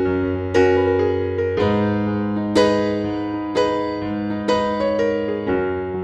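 Background music: slow keyboard piece on piano, a new note or chord struck about once a second and left to ring and fade.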